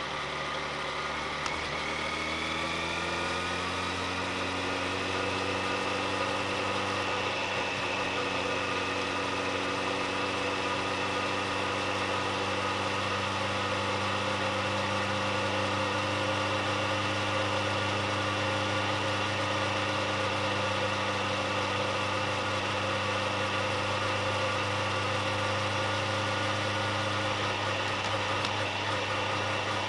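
Vehicle engine driving through a road tunnel: its pitch climbs over the first few seconds as it speeds up, then holds steady at cruising revs over road noise.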